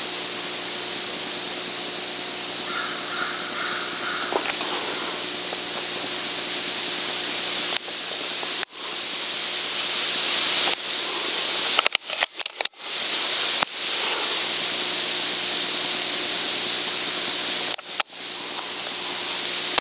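Steady, high-pitched chorus of late-summer insects (crickets or katydids) in the woods, with a few short bird calls about three to four seconds in. The sound cuts out abruptly for a moment several times in the second half.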